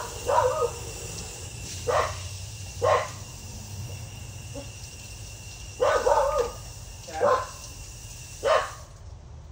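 A dog barking in short single barks, about seven of them at uneven intervals.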